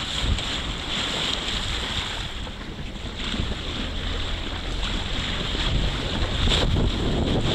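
Wind buffeting the microphone over the steady rush and slap of choppy sea water around a moving boat, with a constant low rumble.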